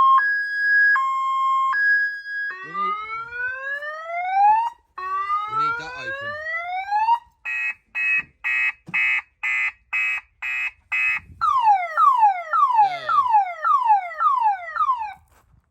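Sports car's alarm siren going off and cycling through its tones: an alternating high-low two-tone, then two long rising whoops, then rapid beeps at about three a second, then a run of quick falling chirps, before it cuts off near the end.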